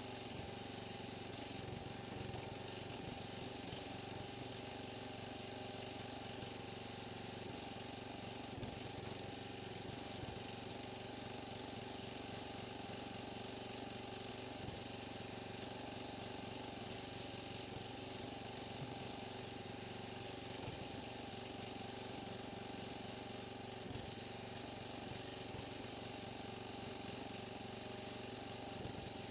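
Small engine of a homemade log splitter running steadily.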